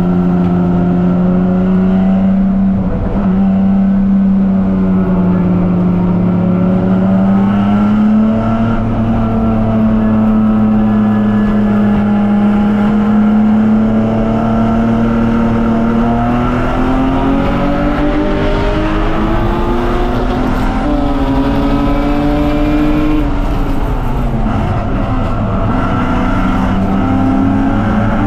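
BMW 330Ci's straight-six engine running hard under load, its pitch holding and then climbing slowly through a long pull, dropping sharply about 24 seconds in and climbing again.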